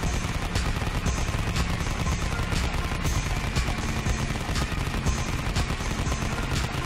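Rapid automatic gunfire sound effect: a continuous stream of shots.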